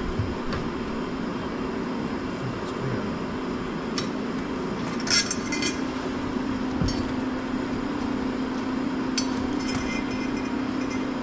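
Scattered light metallic clinks and taps of door handle hardware being handled and fitted, over a steady low hum.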